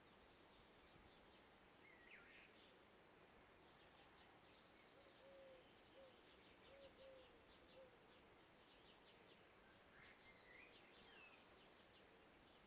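Faint woodland birdsong: small birds chirping and singing, with two clearer warbling phrases near the start and near the end. In the middle there is a short run of four low, brief notes.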